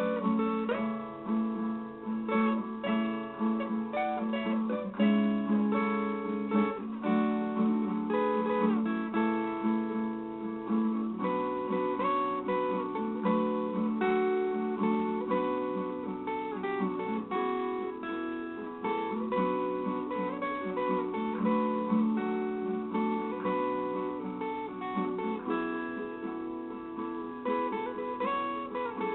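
Solo viola caipira playing an instrumental melody, its steel strings plucked and strummed in a steady run of notes over a low sustained bass note.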